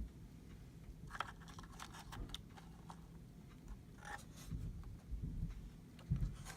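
Quiet handling noises as a model building is lifted and moved over a foam-lined toolbox case: a few light clicks and rustles, then soft low bumps near the end.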